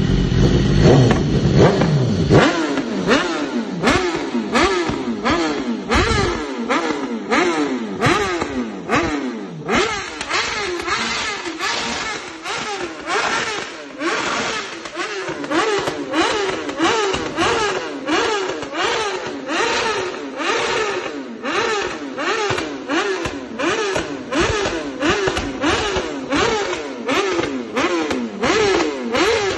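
BMW S1000RR inline-four engine through an aftermarket sport exhaust, revved in quick repeated throttle blips, the pitch rising and falling about once or twice a second, with sharp cracks from the exhaust between the revs.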